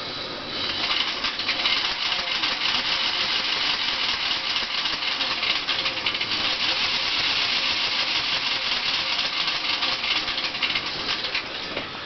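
WarP 9 brushed DC motor of an electric car spinning with no load in neutral, making a steady, harsh rasping noise full of fine rapid crackle. It starts about half a second in and eases off near the end. The owner calls it horrible noises and guesses that chunks of melted, sheared-off carbon brush are flying around inside the motor.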